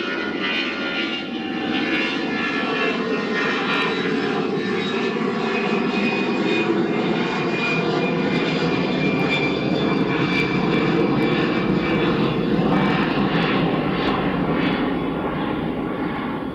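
Jet engines of an Airbus A319 airliner at climb thrust just after takeoff: a steady, loud rumble with a faint high whine, easing slightly near the end as the aircraft climbs away.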